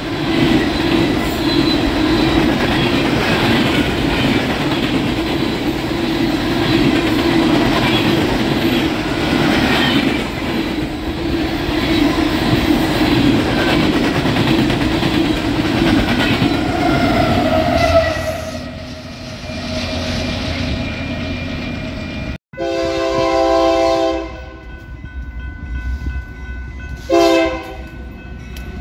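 Freight train cars rolling past with steady wheel-and-rail clatter, which fades away about two-thirds of the way through. After a sudden break, a diesel locomotive's multi-note air horn sounds a long blast, then a shorter one near the end.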